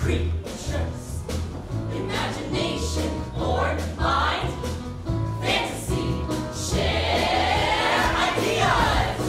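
Music with a choir singing over a steady low bass.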